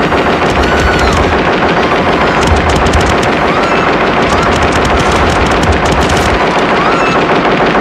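Film sound effect of the ED-209 robot's twin arm cannons firing sustained, rapid automatic fire, loud and without a break.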